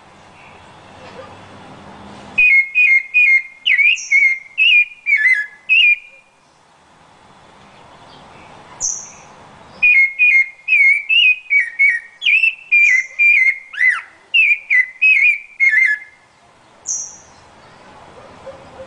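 Rufous-bellied thrush singing: two bouts of rapid, clear whistled notes, each a few seconds long, with a thin high note every few seconds between and within the phrases.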